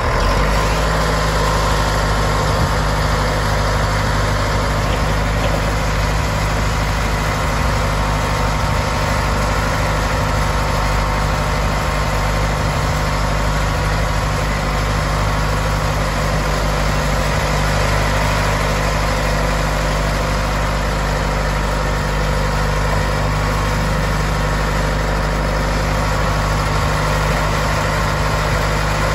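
Caterpillar D5H crawler dozer's diesel engine, a six-cylinder Cat 3306, running steadily at idle.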